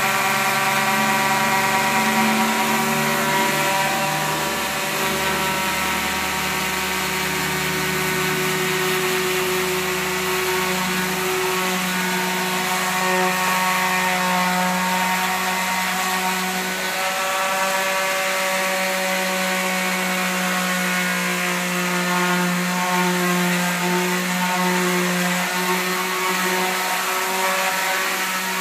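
Electric power sander running steadily with 80-grit paper against the wood of a stripped garage door, sanding off stripper residue and old stain down to raw wood. A low hum under the motor's steady whine drops away about two-thirds of the way through.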